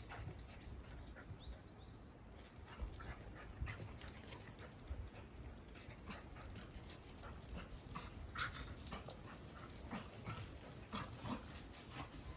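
Two mixed-breed dogs playing, heard faintly, with many short yips and whines scattered irregularly throughout.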